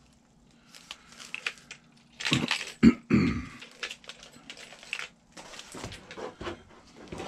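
Cellophane-wrapped plastic parts trays crinkling and clicking as they are handled and set down on a workbench, with a sharp knock about three seconds in.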